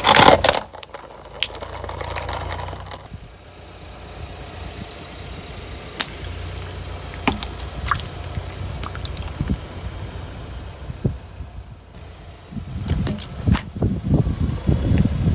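Objects crunching under a heavy vehicle over the low running of its engine: a loud crunch right at the start, scattered sharp cracks in the middle, and a long stretch of crunching near the end.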